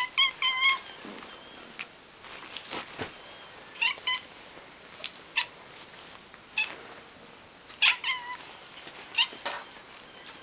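A domestic cat giving short, clipped, bark-like calls in quick bursts of two or three, with sharp clicks between the bursts.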